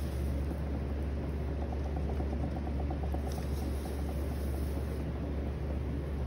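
Electric potter's wheel running with a steady low hum while wet clay is centered and coned up on the spinning wheel head, with a soft rubbing of hands on the clay over it.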